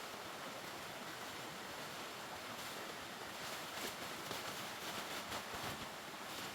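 Steady rushing of a river flowing, with a run of light rustling sounds in the middle.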